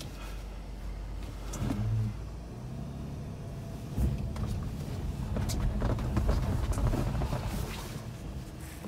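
A BMW E46's engine running at low revs, heard from inside the cabin while the car is being moved. The revs swell briefly about two seconds in and pick up again from about four seconds in, with a few light clicks.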